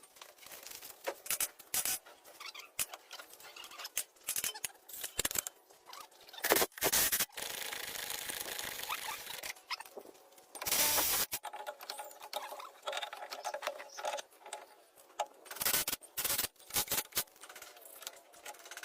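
Hand work on gearbox parts: irregular metallic clicks, taps and scrapes. A hiss runs through the middle, and a short, louder rush of hiss follows just after.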